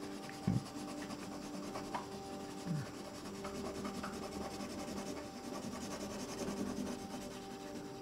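Soft, steady scratching of a brown colouring pencil shaded back and forth on paper, with a light knock about half a second in and another near three seconds.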